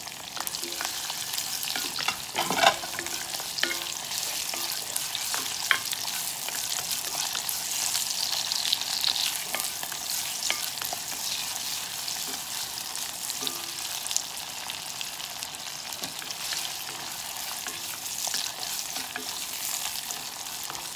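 Diced onion, ginger and garlic sizzling and crackling in hot oil in an enamelled pot, stirred with a wooden spoon. A sharp knock sounds about two and a half seconds in, and a lighter one near six seconds.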